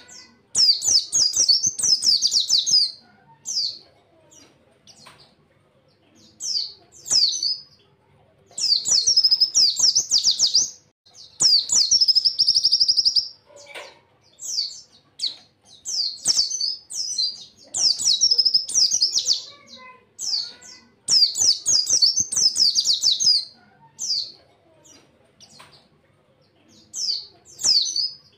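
A pleci (white-eye) singing in repeated high-pitched bursts of quick chattering notes, phrase after phrase with short pauses, including one fast, even trill about halfway through.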